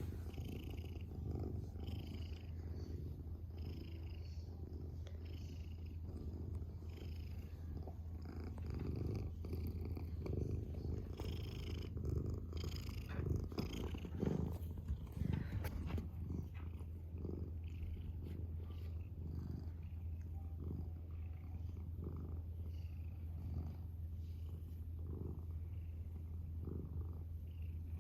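Domestic cat purring steadily close to the microphone, the purr swelling and easing about once a second with each breath. A few soft clicks or rustles come in the middle.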